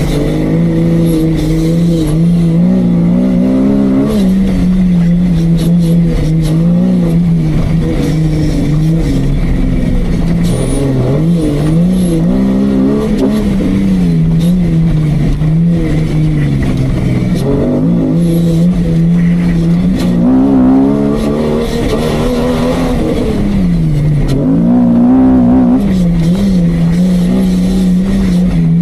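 Off-road competition jeep's engine running under load, its revs rising and falling repeatedly as it works through the course.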